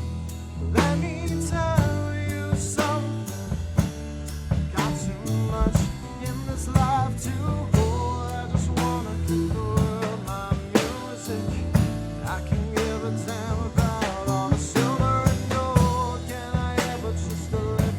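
A live rock band playing an instrumental passage with no vocals. A drum kit keeps a steady beat with snare and rimshot hits, over sustained bass notes and a lead melody line with vibrato.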